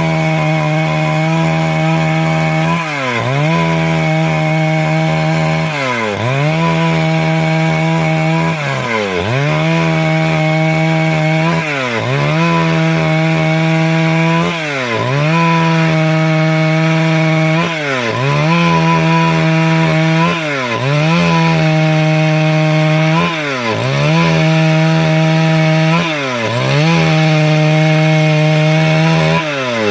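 Stihl MS 382 two-stroke chainsaw running at high revs while cutting wood, ripping a log into boards. About every three seconds the engine note dips briefly and climbs back up.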